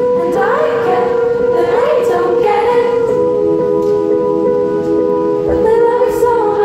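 Live performance of a slow pop ballad: a female singer sings a gliding melody over a steady sustained note, then holds one long note a little past the middle before the line moves on again.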